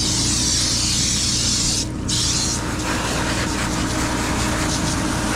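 A steady spraying hiss over a low engine hum. The spray stops for a moment about two seconds in, then carries on less strongly.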